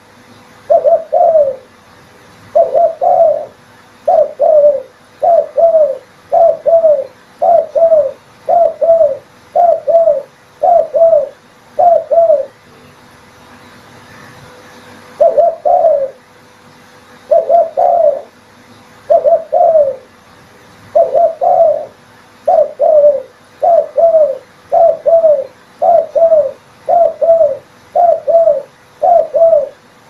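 Spotted dove cooing over and over, each coo a short two-part phrase, about one a second. The coos pause for about three seconds halfway through, then resume.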